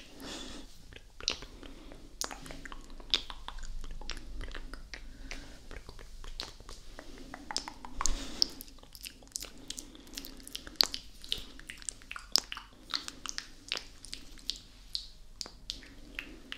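Wet ASMR mouth sounds made right up against the microphone: irregular lip smacks, tongue clicks and kiss sounds, coming thicker and faster in the second half.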